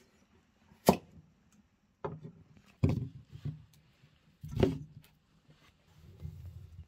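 Cleaver chopping through pumpkin onto a wooden stump board: three sharp knocks about two seconds apart, with quieter dull thuds between.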